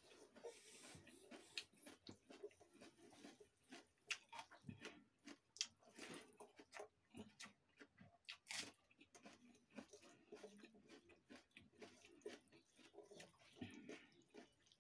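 Faint close-up eating sounds: chewing and mouth smacks as leftover rice and raw onion are eaten by hand, with fingers mixing the rice on a steel plate. Many short, sharp clicks and smacks come throughout, a couple of them louder than the rest.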